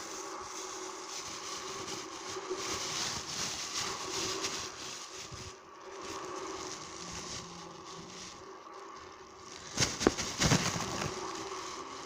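Rushing water or surf sound effect: a steady wash of noise that swells and eases. A short cluster of sharp, loud cracks or splashes comes about ten seconds in.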